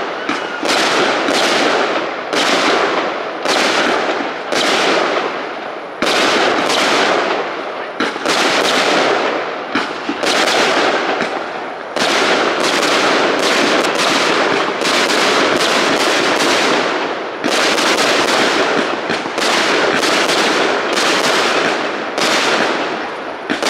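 Fireworks display: aerial shells bursting in a near-continuous barrage of loud bangs, about two a second, each trailing off in crackle and echo.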